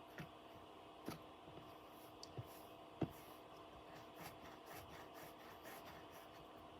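Faint sticky clicks and small pops of slime being squeezed and poked by hand, with one louder pop about three seconds in and a run of soft crackles after it.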